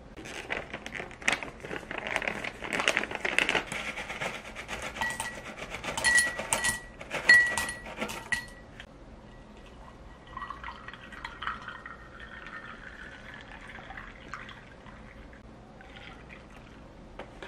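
A snack pouch crinkling as hard dalgona candy pieces are shaken out and clink into a glass tumbler, the glass ringing at the loudest hits. About ten seconds in, milk pours from a carton into the glass for a few seconds, filling it.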